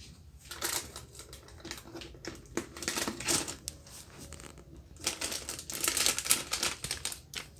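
Rapid light clicking and rattling at a stainless steel mixing bowl as ground black pepper is sprinkled over a flour-and-vegetable pakora mix, coming in several short flurries.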